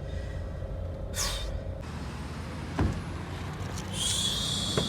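Car driving in traffic: a steady low rumble of engine and road, with a short hiss about a second in, a single knock just before three seconds, and a steady hiss from about four seconds on.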